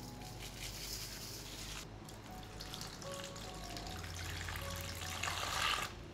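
A fine hiss of salt sprinkled over grapefruits in a stainless steel bowl, then a thin stream of water poured onto them. The pour builds to its loudest near the end and stops abruptly. Soft background music plays throughout.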